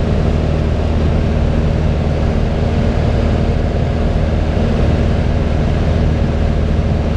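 Piper Cherokee 180's four-cylinder Lycoming O-360 engine and propeller running steadily in flight, a loud even drone heard from inside the cockpit.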